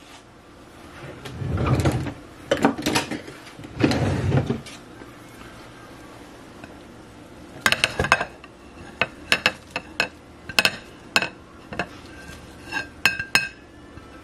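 Shredded chicken being scraped out of a bowl into a slow cooker's stoneware crock: dull scraping and shuffling first, then a scatter of sharp, ringing clinks as the bowl and a utensil knock against the crock's rim.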